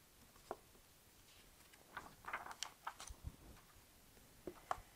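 Faint handling of a picture book as a page is turned: a few soft clicks and a short paper rustle.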